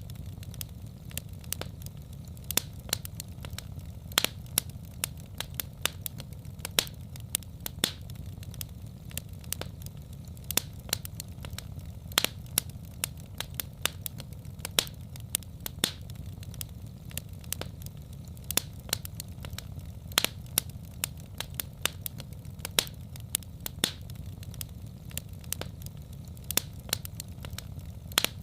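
Wood fire in a fireplace crackling: frequent sharp, irregular pops and snaps over a steady low rumble.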